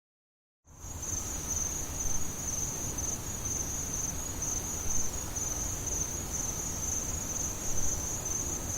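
Insects trilling in one steady, high, unbroken note over a faint low rumble, starting suddenly about a second in after total silence.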